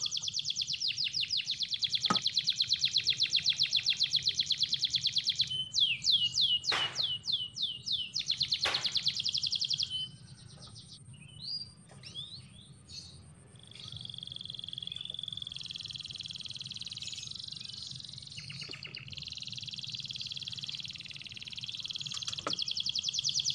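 Fishing reel being cranked, a rapid high-pitched clicking, while a fish is played on the line. About six seconds in comes a run of short falling whistles, then a quieter stretch with scattered chirps, and the fast clicking starts again near the end.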